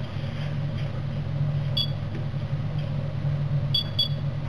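Steady low hum inside a tram's driver's cab, with three short electronic beeps: one about two seconds in and two close together near the end.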